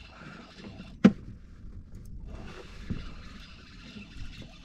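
Shimano Sahara 3000HG spinning reel being cranked while reeling in a hooked catch: a soft winding hiss with faint water sounds, and a sharp knock about a second in.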